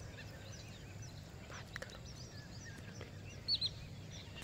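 Wild birds calling in the background: many short falling chirps, with a louder pair of calls about three and a half seconds in, over steady low background noise.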